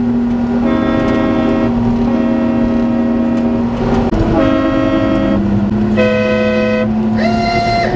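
Five blasts on a Daihatsu Hijet mini truck's add-on horns, switched by a wireless remote, each about a second long and pitched differently, the last one sliding up as it starts. Heard from inside the cab over the steady drone of the truck's engine.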